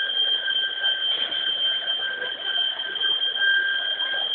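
An electronic alarm sounding one continuous high-pitched tone, with a fainter lower tone beneath it.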